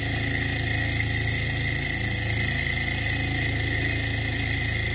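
Small hot-air Stirling engine running at a steady speed while driving its generator under the load of a lit LED: a fast, even mechanical rattle with a constant high-pitched whine.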